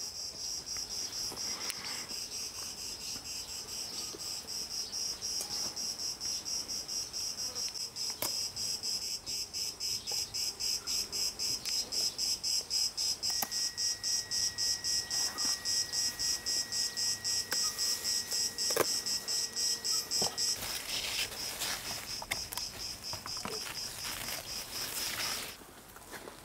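Insects chirring in the garden: a high, fast, evenly pulsed trill that stops shortly before the end. A few faint clicks sound over it.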